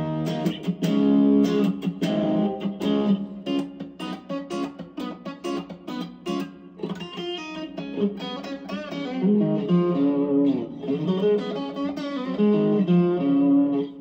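Electric guitar played through a BJpress Soul Clone overdrive pedal, a Klon Centaur clone, switched on, into a Fender Mustang amp's VOX AC30 simulation: picked single-note lines and chords with several string bends.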